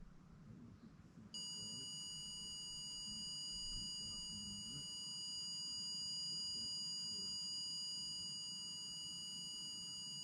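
REM pod alarm sounding: a steady, high-pitched electronic tone that switches on about a second in and holds unbroken. The investigator takes it as a sign that a spirit is present.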